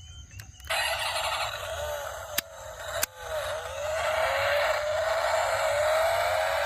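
Small electric motor of a toy car whirring, its whine slowly rising in pitch, with two sharp clicks in the first half.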